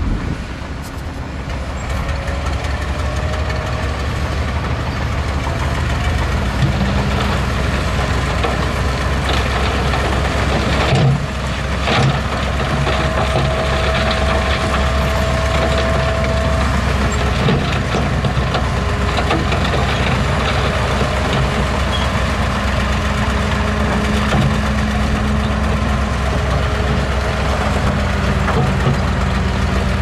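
Heavy diesel earthmoving machinery running steadily, with scattered clanks and knocks. There is a loud knock about eleven seconds in, followed by a whine held for several seconds.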